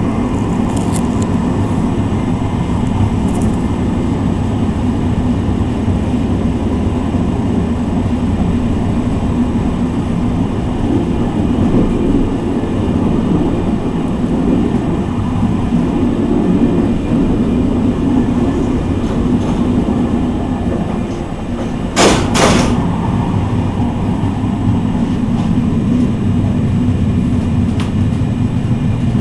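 Train running along the track, heard from the driving cab: a steady low rumble. About three-quarters of the way through there is a short, loud burst of noise.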